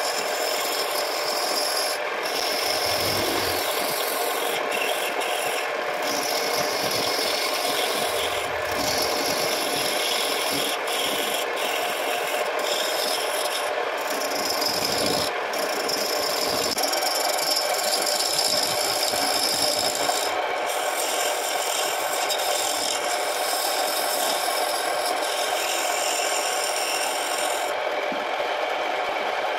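Wood-turning gouge cutting a spinning guava-root blank on a wood lathe: a steady scraping hiss of shavings peeling off, broken briefly a few times as the tool eases off. Near the end the high scraping drops away as the tool leaves the wood and only the lathe keeps running.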